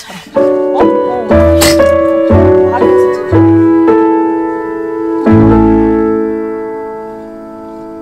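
Background music: soft piano chords struck one after another, the last chord held and ringing out as it slowly fades.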